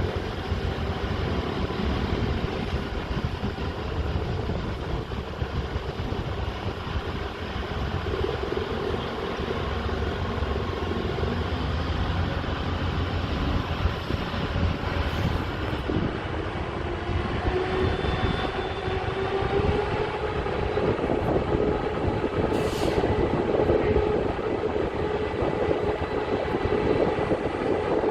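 Steady low mechanical rumble with a droning hum that grows stronger and rises slightly in pitch past the middle.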